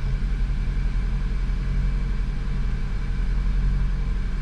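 Car engine idling, heard from inside the cabin: a steady low rumble.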